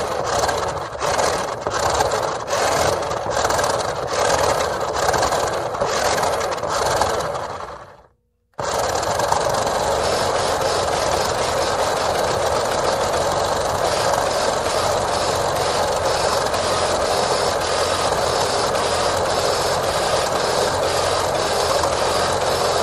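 Small electric motor and gears of an upside-down remote-controlled toy fire truck spinning its wheels with a buzzing whine. For about eight seconds it runs in short bursts, about two a second. After a brief stop it runs steadily without a break.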